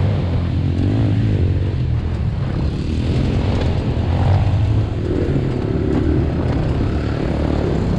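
Home-built electric YZ85 dirt bike, a 72 V 8000 W hub motor run as a mid drive, riding a dirt trail, heard from the rider's helmet: a steady low rumble of wind, tyres and drivetrain.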